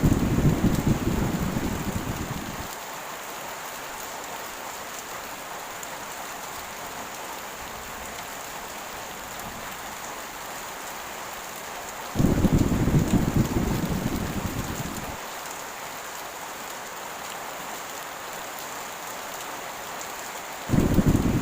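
Steady heavy rain with low rolls of thunder: one rumbling at the start and fading over a couple of seconds, another starting suddenly about twelve seconds in, and a third near the end.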